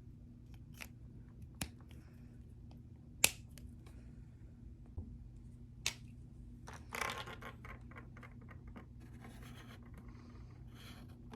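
Handling noises from small hard parts: scattered sharp clicks, one much louder about three seconds in, and a short scraping rustle about seven seconds in, over a steady low hum.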